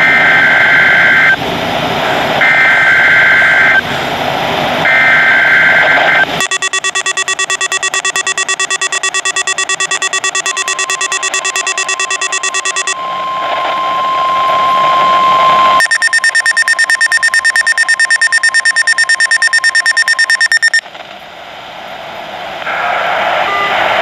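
An Emergency Alert System Required Weekly Test on NOAA Weather Radio, played by a hand-held weather radio. Over radio static come three short bursts of screechy data tones. Then the radio's buzzing electronic alert sounds, a steady single alert tone rises through it, and a fast-pulsing alarm follows; a broadcast voice begins near the end.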